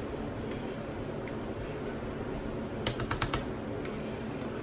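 Light clicks and clinks of kitchen utensils against dishes, with a quick run of several taps about three seconds in, over a steady background hum.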